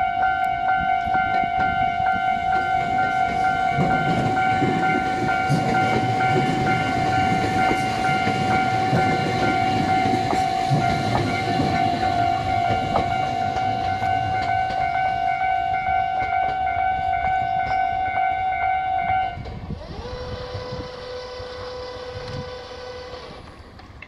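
Japanese level crossing warning bell ringing with a steady, pulsing electronic clang while a Tobu 500 series Revaty express rumbles past over the rails. The bell cuts off about 19 seconds in, and a lower steady tone then sounds for about three seconds.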